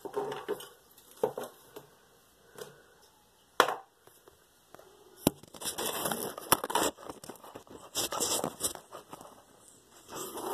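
Rustling, rubbing handling noise of a phone being moved and propped up, with two sharp clicks or knocks against it.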